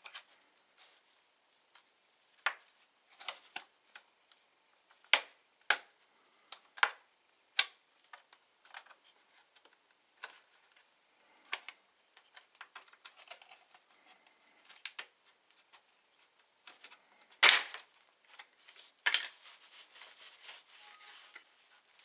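Plastic snap clips of a Lenovo Legion Y720 laptop's bottom cover popping loose one by one as a plastic card pries along the seam. About a dozen sharp clicks come at uneven gaps, the loudest about three quarters of the way through. Near the end there is scraping as the cover comes away.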